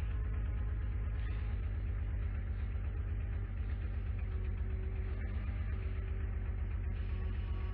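Engine of a Versatile swather converted to a snowblower, idling steadily with a fast, even low thrum.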